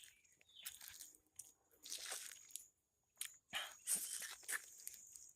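A man eating ripe mango: faint, wet chewing and biting noises in irregular short bursts.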